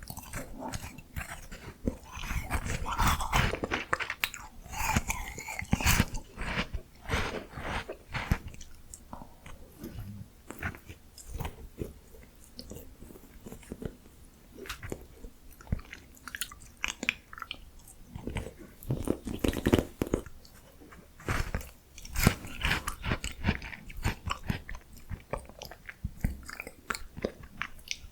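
A person biting and chewing miniature ice cream with crunchy bites, in irregular clusters that are busiest in the first several seconds and again about two-thirds of the way through.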